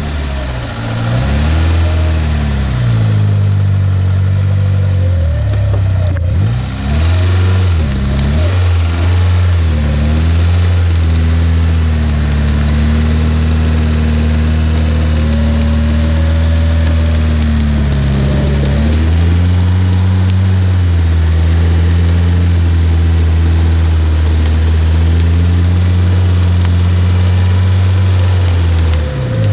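Off-road vehicle engine revving, its pitch rising and falling repeatedly for about the first ten seconds, then held at steady high revs for most of the rest.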